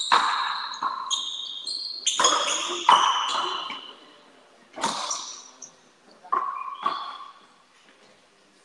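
Frontenis rally: about six sharp cracks of the rubber ball off the racquets and the fronton wall, spaced a second or two apart, each ringing in the court, with short high squeaks between them. The play stops near the end.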